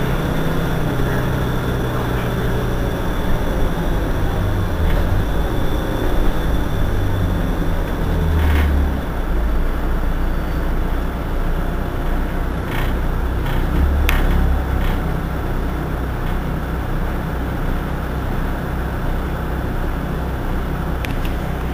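Irisbus Citelis 18 articulated city bus's rear-mounted diesel engine idling steadily while the bus stands at a stop, its low hum shifting a little now and then. A few brief sharp clicks are heard partway through.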